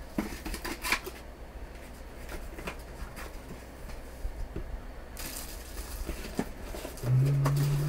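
Cardboard packaging of a trading-card hobby box being handled: the lid and cardboard insert lifted out with light rustles, scrapes and taps. Near the end a short, steady low hum starts and steps slightly up in pitch.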